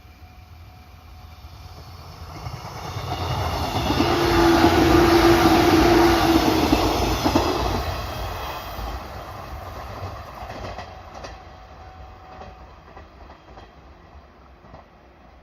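A train passing close by: the rumble of its wheels on the rails builds, is loudest for a few seconds around the middle with a steady hum, then fades away as it leaves.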